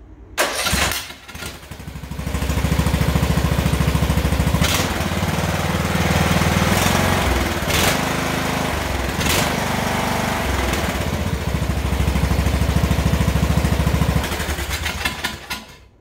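Briggs and Stratton riding-mower engine cranking briefly and catching, then running steadily at speed with a few sharp pops, dropping to a lower speed near the end and shutting off. This is its first start after the hydro-locked engine was cleared of gasoline and given a new Walbro-style carburetor.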